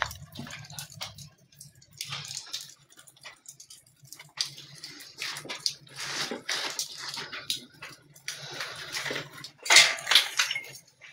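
Irregular scraping and crumbling of broken plaster and brick as a hand pulls rubble out of a hole in a wall, in short uneven bursts with a louder knock near the end.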